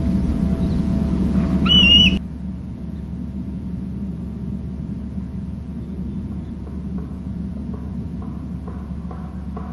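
A nesting bald eagle gives one short, high whistled call about two seconds in, over steady background noise and a low hum. Just after the call the background drops suddenly to a quieter steady low hum, with faint ticks near the end.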